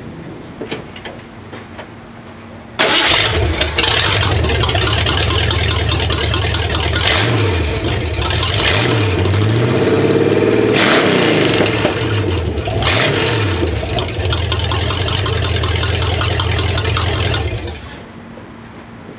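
1978 Ford F-150's late-model 351 Windsor V8 with a stock cam, running on open exhaust manifolds with no pipes attached. It starts suddenly about three seconds in, is revved up and down several times in the middle, settles back to idle and shuts off near the end.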